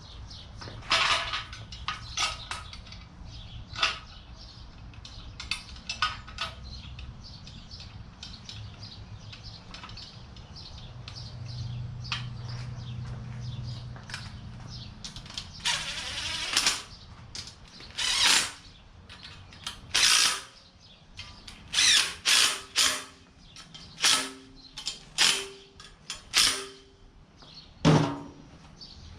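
Hand-tool work on a small-block V8 engine: ratchet clicks and metal clanks as it is being fitted back onto its engine stand. In the second half there is a run of about ten sharp knocks, some of them briefly ringing.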